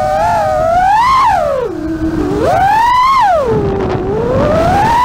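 FPV quadcopter's brushless motors whining, the pitch rising and falling with the throttle. The pitch drops low about two seconds in and again around four seconds in, as the throttle is cut for a flip and dive. A rush of wind and prop wash sits under the whine.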